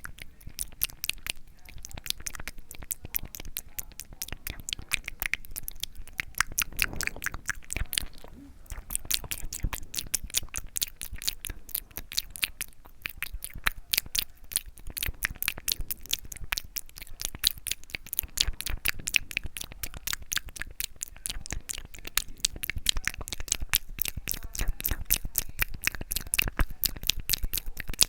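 Close-miked ASMR mouth sounds: a steady stream of wet tongue and lip clicks and smacks, several a second.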